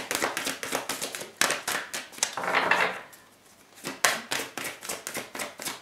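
A tarot deck being shuffled by hand: quick runs of sharp card clicks in bursts, with a short pause about three seconds in.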